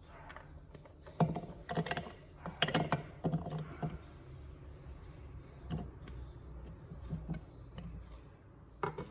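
Chopped shallots, garlic and pineapple being pushed off a ceramic plate into a plastic blender jar: a series of light, irregular knocks and clatters as the pieces drop in and the plate edge taps the jar.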